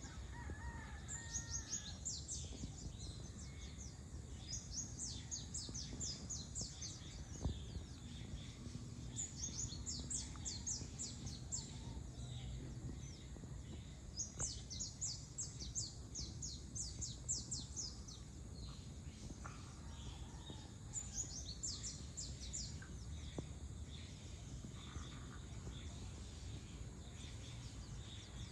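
A bird singing outdoors: bursts of rapid, high, falling notes lasting one to three seconds, repeated every few seconds, over a low steady background rumble.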